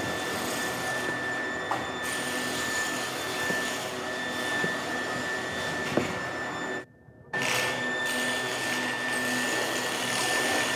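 Steady factory machinery noise with a constant high whine, cut off sharply for about half a second around seven seconds in, then resuming.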